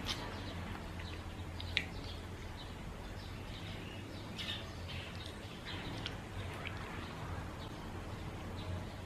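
Mouth sounds of someone chewing food: scattered short wet clicks and smacks over a steady low hum.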